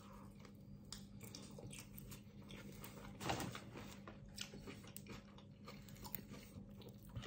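Faint biting and chewing of a pizza slice, with small crunches and a slightly louder one about three seconds in.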